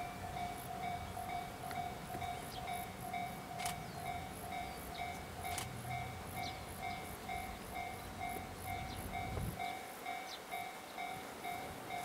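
Japanese level-crossing warning bell ringing in an even, rapid rhythm, a little over two strikes a second. Beneath it is the low rumble of a passing train, which cuts off abruptly about nine and a half seconds in.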